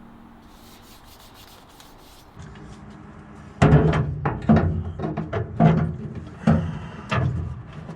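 Rough rubbing and scraping in about five hard strokes, starting about halfway in, as something is shifted against the car's boot floor.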